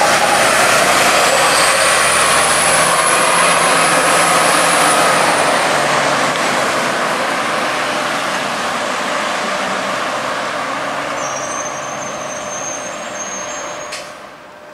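Orion VII city bus driving away: engine and road noise with a high whine that rises and falls in the first few seconds, the sound fading steadily as the bus recedes. A sharp click near the end.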